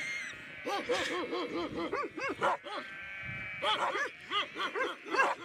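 Tajik shepherd dogs (Central Asian shepherd dogs, alabai) barking in rapid runs of short barks, several a second, pausing briefly about halfway through. This is the aggressive barking of flock guardians going for a stranger on horseback.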